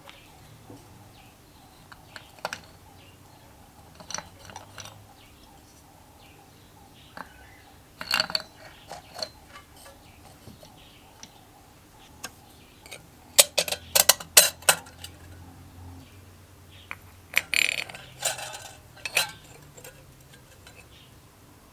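Metal engine parts and hand tools clinking and clicking as a small engine is assembled by hand: scattered single clicks, with a quick run of sharp clicks past the middle and another group soon after.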